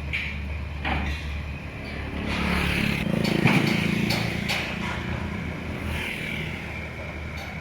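Motor engine running with a steady low hum, growing louder around the middle and easing off again, with scattered knocks and clicks.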